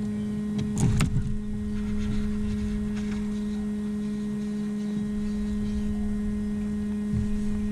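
Bow-mounted electric trolling motor running with a steady, even hum, with a couple of sharp clicks about a second in.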